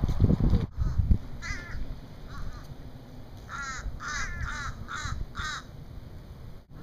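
A bird giving a series of harsh, caw-like calls, seven in all: two spaced apart, then a quick run of five about half a second apart. A low rumble of wind on the microphone comes in the first second.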